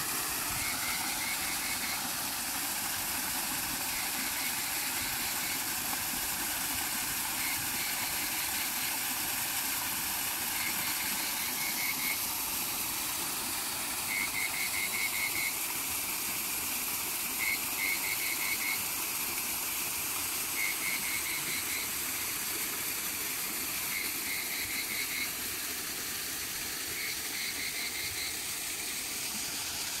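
Frogs calling: short runs of quick croaks every two to three seconds, over the steady rush of a small waterfall spilling into a pond.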